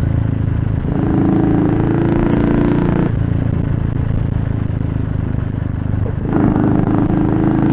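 Motorcycle engine running while riding along a road, heard from the rider's seat. The throttle eases off about three seconds in and opens again near the end.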